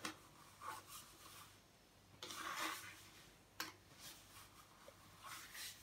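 Plastic spoon stirring and scraping thick, glittery slime in a plastic bowl: a few faint scraping strokes, the longest about two seconds in, and a light click a little later.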